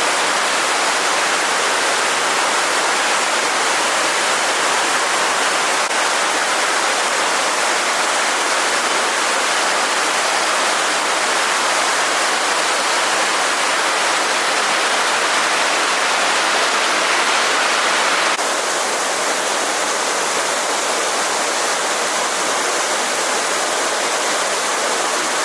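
Steady rushing of a stream's flowing water. About 18 seconds in it cuts suddenly to a slightly quieter, duller rush.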